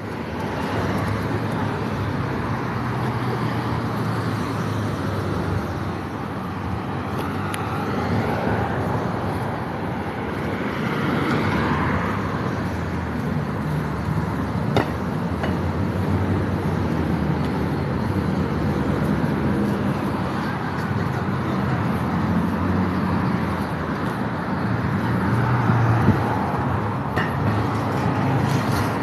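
Street traffic: steady road noise with vehicle engines running and cars passing.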